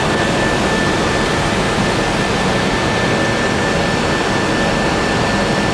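Steady cockpit noise of an Airbus A320 in its climb after takeoff: airflow and jet engine noise as an even hiss and rumble, with a thin steady high tone.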